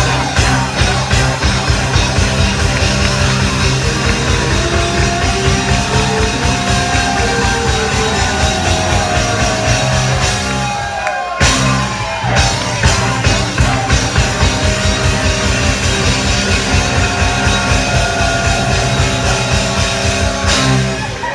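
Live rock band playing loudly with drums on a fast, steady beat; the band stops for a moment about eleven seconds in, then comes straight back in.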